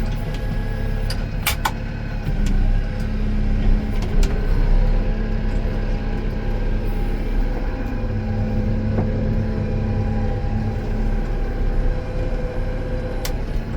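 Farm tractor engine running steadily, heard from inside the cab, with a few sharp clicks and knocks.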